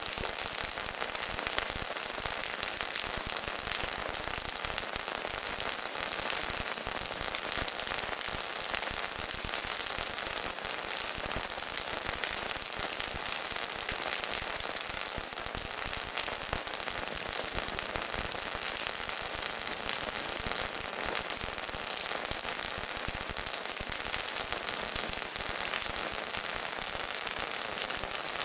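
Six Pyrotrade Mega Crackling fountains burning at once: a dense, steady crackle of countless tiny pops over a high hiss.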